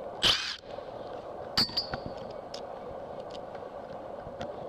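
A wrench with a Torx bit working the pickup coil's screw: a short squeaky scrape as it turns, then a sharp metal clink with a brief ring and a few small clicks, over a steady background hum.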